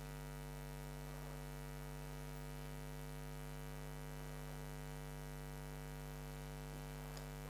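Steady electrical mains hum: a low, unchanging buzz with many evenly spaced overtones.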